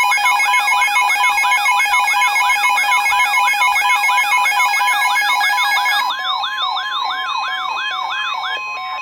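Emergency Alert System attention signal: a steady two-tone chord layered with a siren-like tone that rises about three times a second. About six seconds in, the chord thins to a single steady tone, and the rising sweeps stop just before the tone cuts off at the end.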